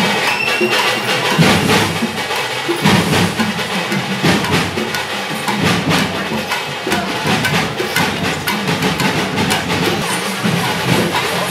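Drums and other percussion played in a busy, continuous rhythm of sharp hits, as in a festival procession band.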